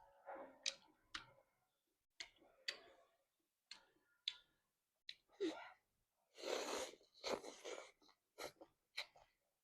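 Close-miked eating of instant noodles with squid: scattered sharp clicks and chewing, with two longer slurps of noodles about six and a half and seven and a half seconds in.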